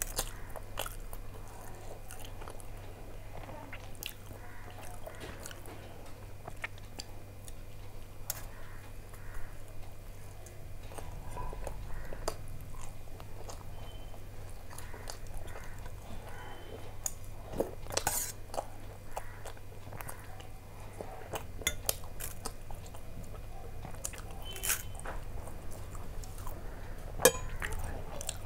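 Chewing and biting of soft paratha flatbread, with many small scattered mouth clicks, and one sharper clink near the end.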